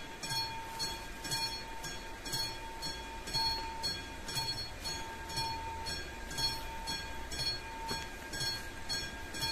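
Classic electromechanical warning bell of an AŽD 71 level crossing, ringing in an even, steady rhythm while the crossing is active: the warning that a train is approaching.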